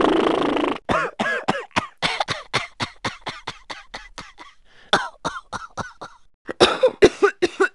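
A person coughing in quick runs of short coughs, about four a second, in three fits, the last the loudest. It opens with a brief rough, raspy noise.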